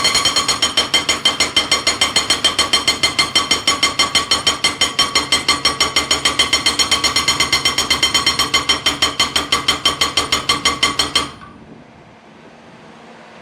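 AY Heavy Industries A22 hydraulic breaker hammering in a fast, even rhythm of several blows a second, each with a metallic ring. It stops suddenly about eleven seconds in, leaving only a faint wind-like rush.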